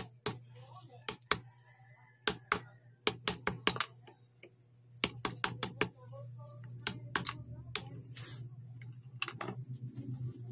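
Irregular sharp clicks and taps from an amplifier circuit board and tools being handled in a speaker cabinet, with clusters of quick taps around 3 to 4 seconds and 5 to 6 seconds in, over a steady low hum.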